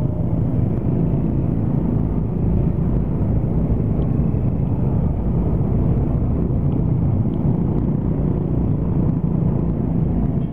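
Engine hum of a Honda Scoopy 110's small single-cylinder four-stroke engine and the motor scooters packed around it, crawling at low speed in a traffic jam. The sound is a steady drone with no sharp events.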